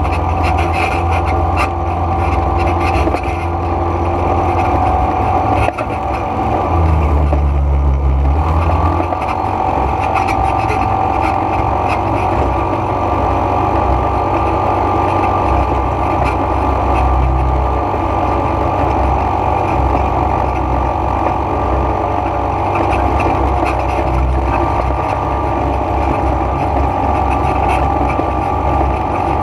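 ATV (quad bike) engine running steadily while being ridden on a dirt road. Its note rises briefly about seven seconds in, then settles back.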